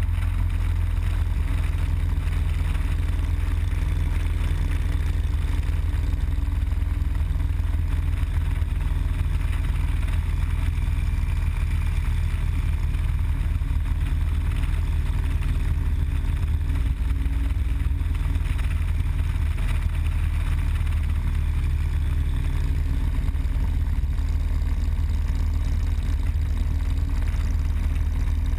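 Harley-Davidson Road Glide Custom's V-twin engine running steadily at highway cruising speed, a deep constant drone mixed with wind rush on the microphone.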